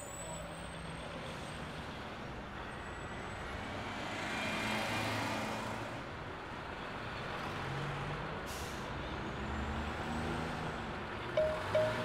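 Steady rushing of a small waterfall cascading over rocks into a pool.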